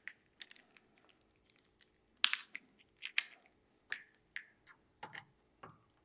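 Scattered sharp clicks and taps of metal parts as a Unity optic mount is worked loose from a rifle's rail. The loudest clicks come about two and three seconds in.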